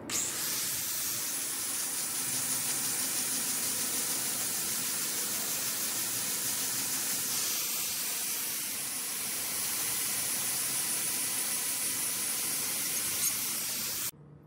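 Electric angle grinder running with an abrasive polishing disc on a steel tool blade: a steady high whine and hiss of the disc working the metal toward a mirror finish. It stops abruptly near the end.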